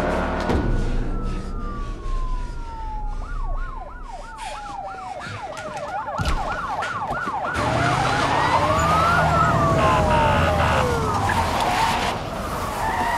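Police car sirens, several overlapping: a slow falling wail, then a fast repeating yelp from about three seconds in, then more rising and falling wails, with car engines running underneath in the second half.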